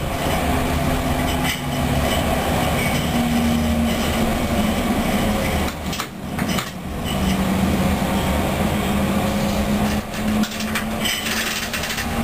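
Light-rail tram running on street-side track, heard from the driver's cab: a steady motor hum whose pitch shifts up and down over the rumble of wheels on rail, with a few knocks from the running gear.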